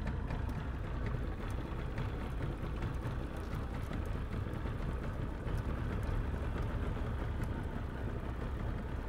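Small wooden cabin motorboat's engine idling steadily, its sound mostly deep and low.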